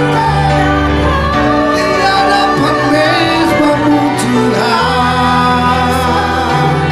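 Slow worship song: a band holding sustained bass and keyboard chords under a sung melody.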